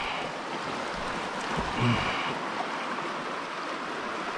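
Steady rush of a flowing stream, with a brief faint sound about two seconds in.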